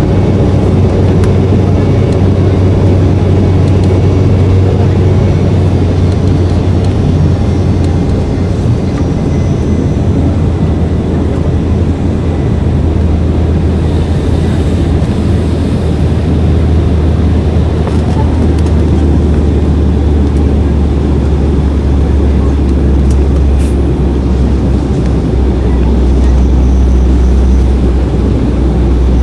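Steady, loud drone of an airliner's engines and airflow heard from inside the cabin during the climb after takeoff.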